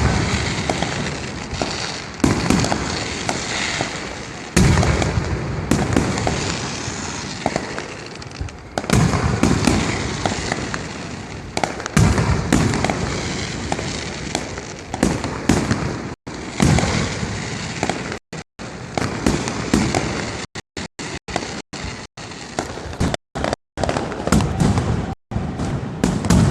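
Gunpowder festival pyrotechnics going off: loud bangs every two to three seconds, each trailing off in a long rumble. Over the last third they give way to a quicker, choppier run of blasts.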